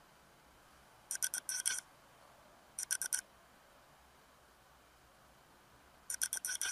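A makeup brush being stroked quickly, heard as three short bursts of rapid scratchy strokes: about a second in, about three seconds in, and near the end.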